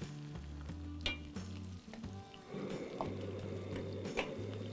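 Background music over cubed onions sizzling in hot groundnut oil with mustard seeds in a steel pan, the first frying of a sambar tempering. A metal spoon clinks against the pan as it stirs them near the end.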